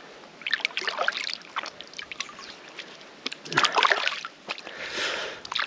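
River water splashing and sloshing in three short bursts, about half a second in, three and a half seconds in and near the end, as a just-landed white-spotted char is handled in the shallows.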